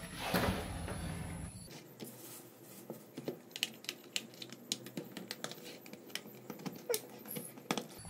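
Plastic laptop case being pried apart with a plastic card: a rubbing, handling noise at first, then a string of small, irregular plastic clicks as the card works along the seam and the case's snap clips pop loose.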